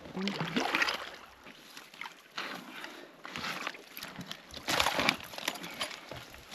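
Water sloshing with scraping and crunching of ice, in a few irregular bursts, as a trap is handled in a hole in the ice.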